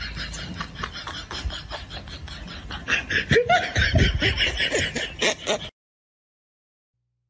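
A person laughing in quick, breathy snickers, growing louder about three seconds in, then cutting off suddenly near the end.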